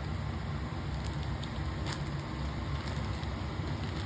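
Faint crackling and a few light clicks of toy packaging being handled, over a steady low hum.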